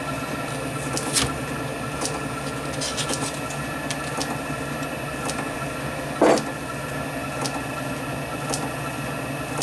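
Hex key undoing the cap screw that clamps an aluminium casting to a lathe angle plate, over a steady machine hum, with a few light metal clicks and a short knock about six seconds in.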